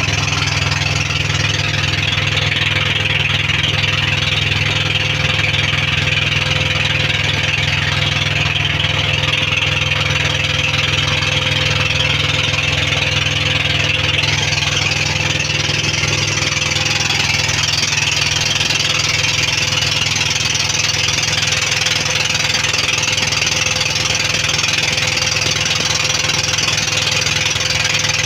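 Pumpboat engine running steadily, a constant low drone that does not change.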